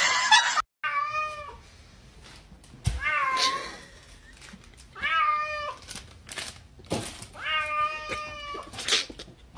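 Cat with its head stuck in a snack bag meowing over and over: about four drawn-out, wavering meows roughly two seconds apart, the last one longer. There are short rustles or clicks between the calls.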